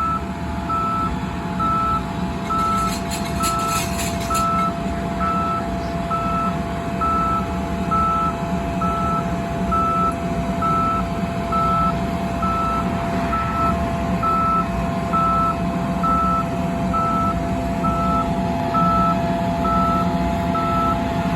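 Electronic warning beeper sounding about once a second, steady and unchanging, over a low, steady engine hum.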